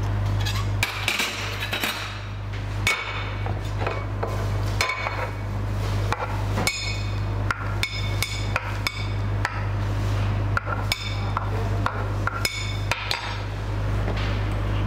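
Knife chopping plantain on a wooden cutting board, a run of irregular sharp knocks, then a metal spoon clinking and scraping on a ceramic plate as the pieces are scooped up.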